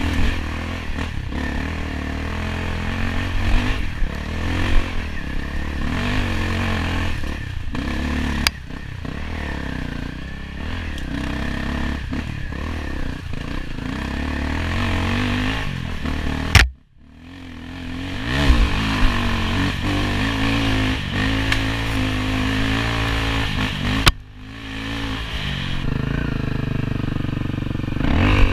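Enduro dirt bike engine rising and falling in pitch as the throttle is worked over rough trail, with clattering from the bike over the ground. The sound cuts out sharply once, about halfway through, then builds back up.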